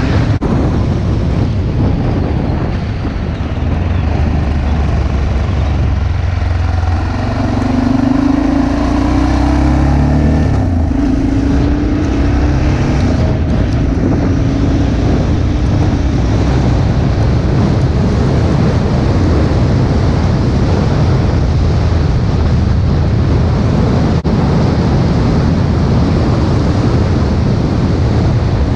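A motorcycle riding along a road, with steady wind rush on the microphone over the engine. The engine note rises and falls audibly for a few seconds partway through. A bus passes close by at the very start.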